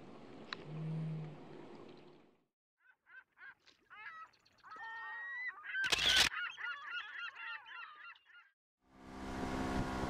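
A flock of birds calling, many squawking calls overlapping and bending in pitch, with one sharp crack about six seconds in. Before the calls there is a steady hiss of wind and water, and music starts near the end.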